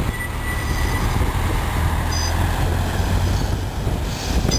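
Siemens Combino Supra tram running on its rails, heard from aboard: a steady low rumble of wheels and running gear, with a thin high squeal in the first second and short high squeaks about two seconds in.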